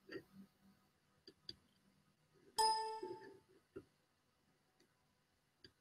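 A single short ding about two and a half seconds in: one steady-pitched tone with overtones that starts sharply and fades within half a second. A few faint clicks come before and after it.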